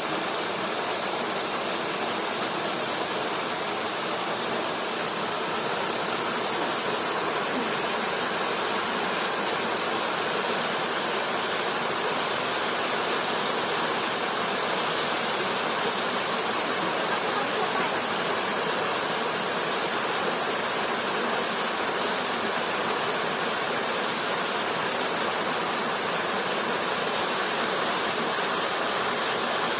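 Rushing water, a steady, even hiss of a stream or waterfall running without a break.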